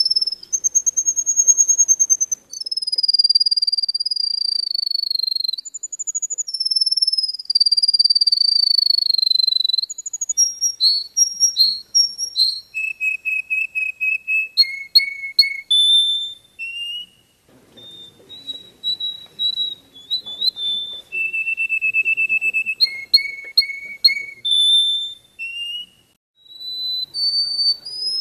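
A small yellow finch singing: high, clear whistled phrases, some long and slowly falling, others quick runs of short repeated notes, with brief pauses between phrases.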